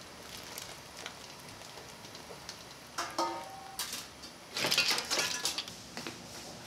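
Metal kitchenware knocking and clattering: a wire skimmer strikes a pot with a short metallic ring about three seconds in, then a louder rattling clatter follows around five seconds, as the skimmer is emptied into an aluminium pot. A steady hiss of boiling broth runs underneath.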